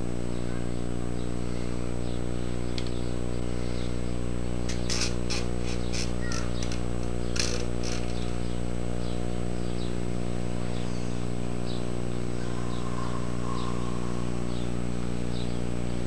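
A steady electrical hum with many overtones runs under the scene. From about five seconds in, a cluster of short metallic clicks and scrapes comes from a height gauge scriber being worked against a workpiece on a granite surface plate.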